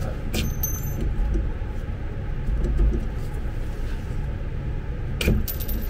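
Two light metallic clinks of hand tools against the power wheelchair's rear wheel hub, one about half a second in and one near the end, over a steady low rumble.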